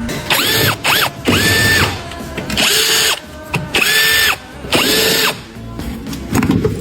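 A cordless power tool spinning up in about six short bursts, each rising quickly to a steady whine and then stopping.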